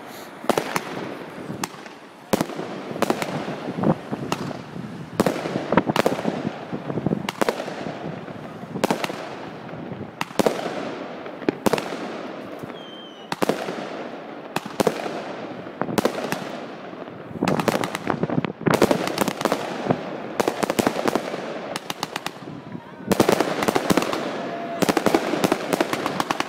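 Fireworks going off: a long series of sharp bangs at irregular intervals, each trailing off in an echo, over a continuous crackle. The bangs come thickest near the end.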